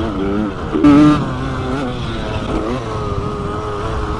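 Suzuki RM80/85 two-stroke single-cylinder motocross engine revving up and down as the bike is ridden over the dirt track, its pitch rising and falling with the throttle. About a second in there is a short, sharp, louder blip before it settles back to a steady run.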